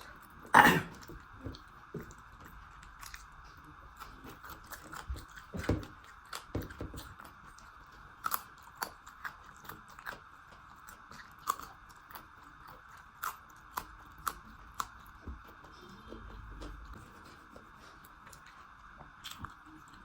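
Close-up eating sounds: a person chewing and biting food, with scattered wet clicks and crunches. The loudest crunch comes a little under a second in.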